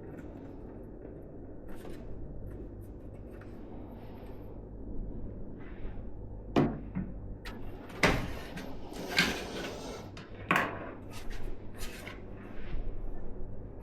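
PC parts being handled during assembly: a few faint taps and rubs, then from about six seconds in a run of sharp clicks and knocks of hard parts against each other, over a steady low hum.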